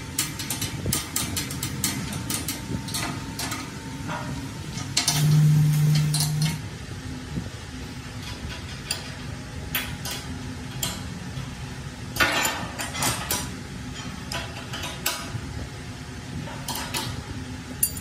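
Metalworking workshop noise: a steady low mechanical hum with scattered metal clicks and knocks. A louder low drone comes in for about a second and a half about five seconds in, and a brief burst of clatter follows later.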